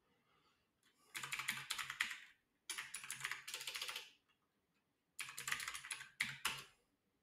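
Typing on a computer keyboard: three quick runs of keystrokes, each about a second long, separated by short pauses.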